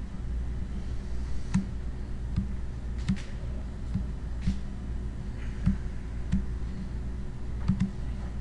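Scattered computer mouse and keyboard clicks, irregular at about one a second, some with a soft low knock, over a steady low room hum.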